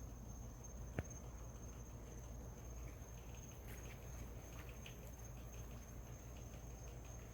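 Crickets giving a steady high trill, faint, over a low rumble, with one sharp click about a second in.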